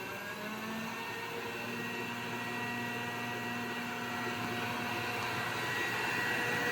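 Robot vacuum cleaner running: a steady motor whine with several held tones over a hiss, slowly getting a little louder.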